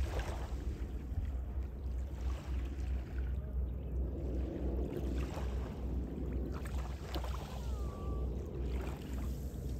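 Wind buffeting the microphone in a steady, pulsing low rumble, with small waves lapping gently at the shoreline.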